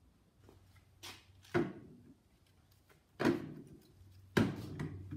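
Scattered sharp knocks and clicks of hands handling a plastic battery charger and its plug at a wall socket, with a quick run of clicks near the end.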